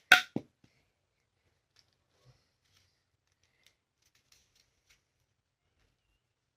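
Handling of a plastic puzzle cube: two sharp clacks right at the start, then only a few faint scattered clicks.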